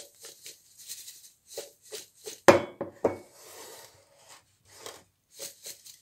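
A pot of strawberries and sugar being shaken by hand: the sugar and berries rustle as they shift, and the pot knocks on the counter in short strokes, loudest in a couple of clunks about two and a half and three seconds in.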